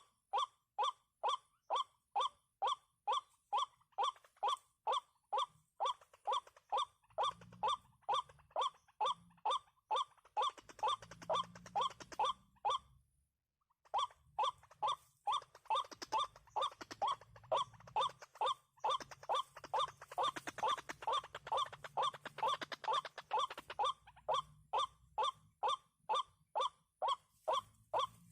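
White-breasted waterhen calling: a steady string of short, honking 'kwak' notes, about two and a half a second, which breaks off for about a second roughly halfway through and then carries on.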